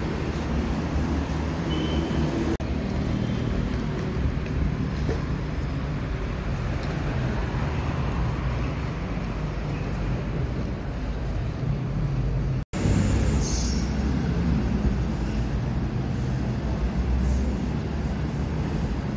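City street traffic noise: a steady rumble of passing and idling cars with low engine hum. The sound cuts out for an instant about two-thirds of the way through.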